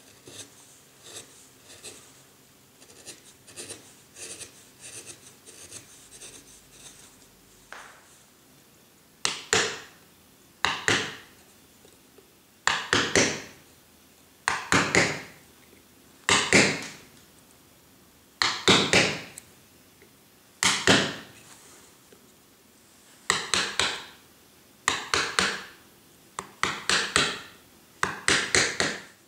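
Hand-pushed carving gouge cutting into limewood: light scratchy nicks at first, then from about nine seconds a series of about eleven loud scraping cuts, each under a second long, roughly one every two seconds.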